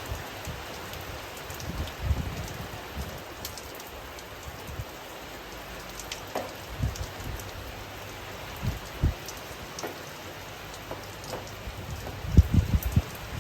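Steady rain falling and pattering on surfaces, with scattered sharp drop ticks and occasional low thumps, a quick cluster of them near the end being the loudest.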